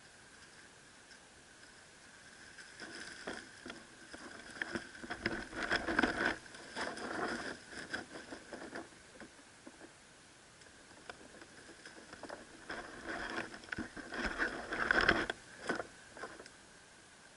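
A lace monitor moving through dry leaf litter close to the camera: irregular crackling and rustling of leaves and twigs in two spells, the second the loudest.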